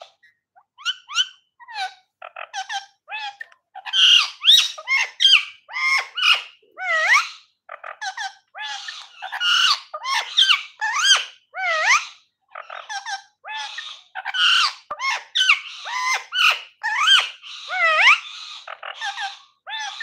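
Rose-ringed parakeet (Indian ringneck) calling: a long, loud run of chattering squawks and whistled notes that swoop up and down in pitch, several a second, starting about a second in.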